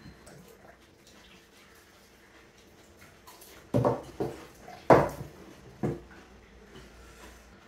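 Eating noises from someone eating pani puri: a quiet stretch, then four short sharp crunches and slurps between about four and six seconds in.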